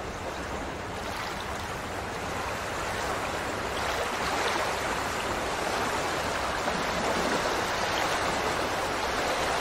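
Steady rushing of water, growing slightly louder over the first few seconds.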